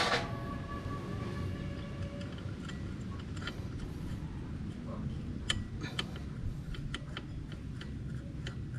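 A sharp metallic clang at the start that rings on for about two seconds, then scattered light metal clicks and ticks at irregular intervals, from hands fitting the front drive pulley and its parts on a scooter's CVT.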